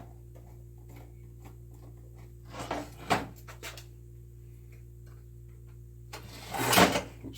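Metal shield being taken off a Conner hard drive by hand: scattered light clicks and a short scrape about three seconds in, then a louder rustle near the end, over a steady low hum.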